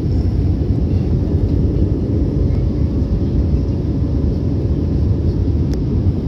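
Steady low rumble of an Airbus A320's jet engines and rushing air, heard inside the cabin in flight, with a faint steady hum and a single small click about five and a half seconds in.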